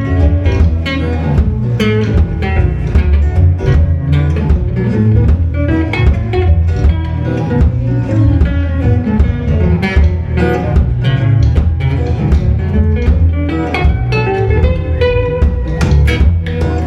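Live band playing an instrumental passage, electric or acoustic guitar to the fore over a heavy bass line.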